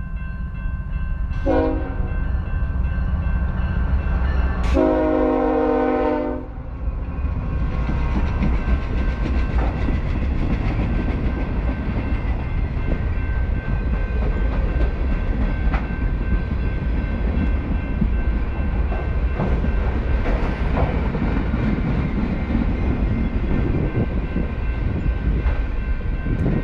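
BNSF freight train's diesel locomotive sounding its horn, a short blast and then a longer one about five seconds in, over the low rumble of the engine. The train then rolls steadily past, its flatcars' wheels rumbling on the rails with occasional knocks and clanks.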